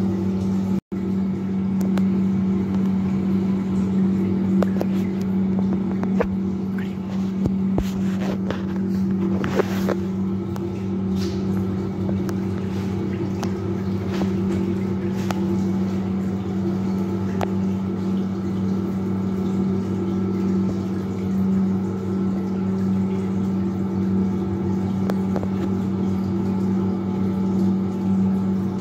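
Hydraulic bench's electric water pump running with a steady hum, supplying water to the Hele-Shaw apparatus. The hum cuts out for an instant about a second in.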